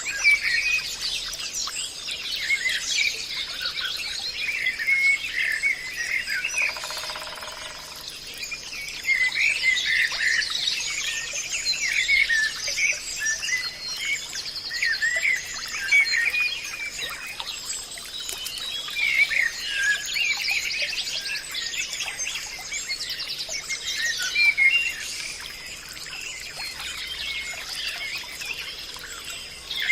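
A chorus of many birds chirping and singing in a forest, with short overlapping calls and trills throughout, over a steady high-pitched hum.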